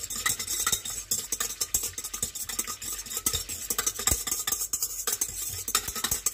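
Wire whisk beating milk and yeast in a stainless steel mixing bowl, a rapid, continuous clatter of the wires against the metal.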